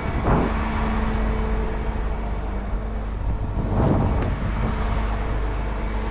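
Rollback truck driving: a steady engine drone and road rumble, with two short louder swells, one just after the start and one about four seconds in.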